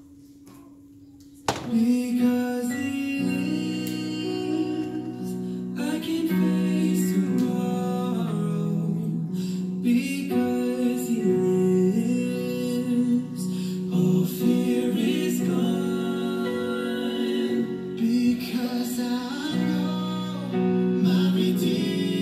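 A song with singing over guitar starts suddenly about a second and a half in and plays on steadily, accompanying a dance. Before it there is only a faint steady hum.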